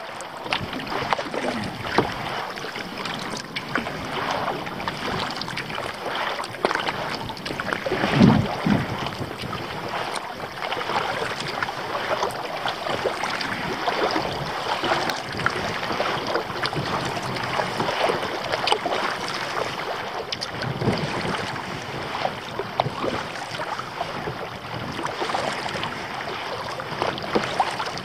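Water splashing and lapping around a kayak as it is paddled along, with wind buffeting the microphone. A louder low thud comes about eight seconds in.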